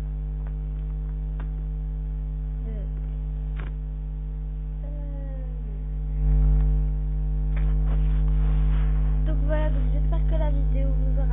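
Steady electrical mains hum on the recording, with a few light clicks. In the second half come faint wavering, gliding tones.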